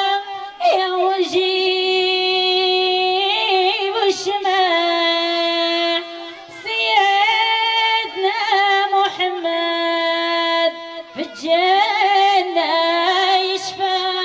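Female voice singing a traditional Jebli wedding song from northern Morocco: long, high held notes broken by quavering, warbling ornaments, with brief pauses about six and eleven seconds in.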